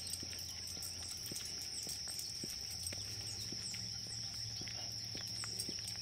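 Steady high-pitched drone of insects, with short high chirps over it and irregular light footsteps on a paved path.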